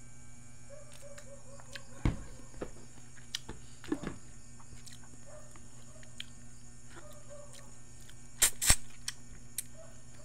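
A person eating by hand: soft chewing and mouth sounds with scattered clicks and knocks, the loudest a sharp pair about eight and a half seconds in, over a steady hum. Faint short chirps recur in small runs.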